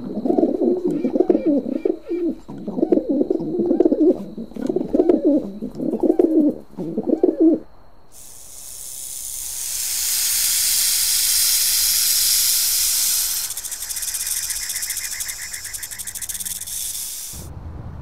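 A cassowary calling in a run of deep, low booming pulses for about seven and a half seconds. Then a snake gives a long, steady hiss that swells about two seconds in and eases off before stopping shortly before the end.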